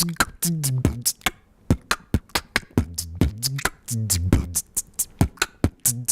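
A person beatboxing: a fast, even run of sharp mouth-made clicks and snare hits, with low hummed bass notes sung between them.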